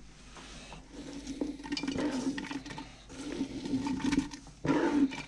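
Chopped onion and garlic scraped off a plastic cutting board by hand and dropping into a pot of cut green tomatoes: uneven scraping and rustling with small clicks, coming and going in patches.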